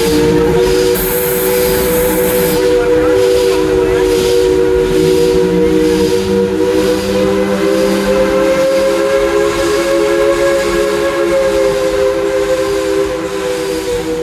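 Steam train whistle blowing one long chord of several tones, bending slightly up in pitch partway through, with a burst of steam hiss about a second in and a regular pulsing beneath.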